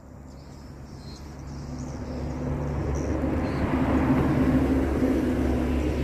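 A motor vehicle's engine running, unseen, with a low hum that grows steadily louder over the first few seconds as it approaches and then stays up.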